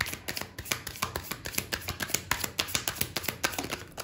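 Tarot deck being shuffled by hand: a fast, uneven run of soft card clicks and slaps, about six a second.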